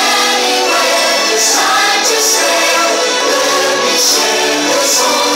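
Fireworks-show soundtrack: loud music with a choir singing sustained notes.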